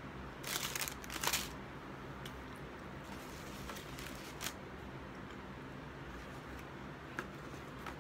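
Paper food wrappers crinkling and rustling as a hand rummages through them: two loud crinkles in the first second and a half, then a few light taps and clicks.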